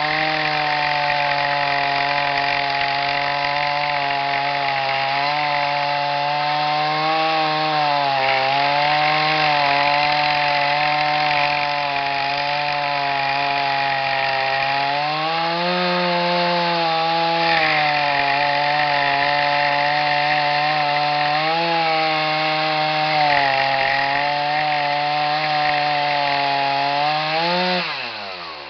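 Chainsaw on a chainsaw mill running at full throttle, cutting along a log, its pitch dipping and recovering as the load on the chain varies. Near the end the throttle is released and the engine winds down.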